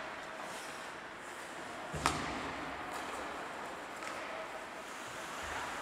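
Ice hockey game in an ice hall: steady rink noise with one sharp slam about two seconds in, with a low thud and a brief ring after it, typical of a hit against the rink boards.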